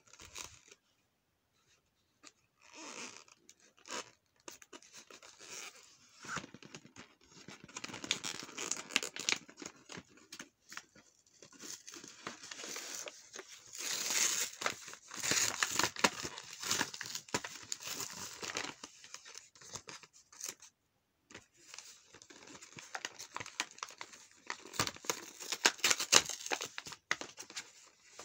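Cardboard backing of a blister-packed craft kit being torn off by hand, with the clear plastic tray crinkling. It comes as irregular rips and crackles in spurts, starting a couple of seconds in and pausing for about a second past the middle.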